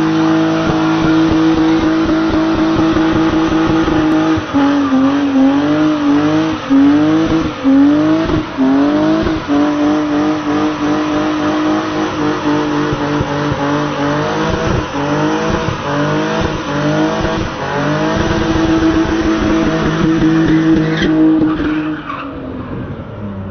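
BMW 325i's straight-six engine held at high revs while the tyres spin and squeal in a burnout. The revs hold steady at first, rise and dip again and again through the middle, hold high once more, and drop away near the end.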